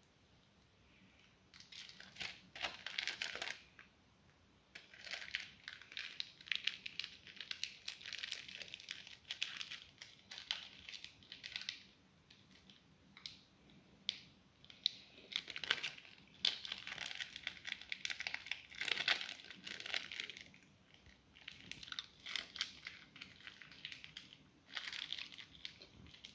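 Plastic wrapping crinkling and rustling in irregular bursts, starting about a second and a half in: a processed cheese slice being unwrapped from its plastic.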